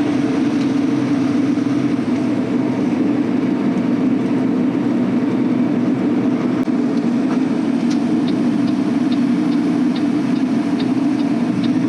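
Semi truck's diesel engine running steadily at highway cruise with road noise, heard from inside the cab. A faint run of light ticks, about three a second, comes in over the last few seconds.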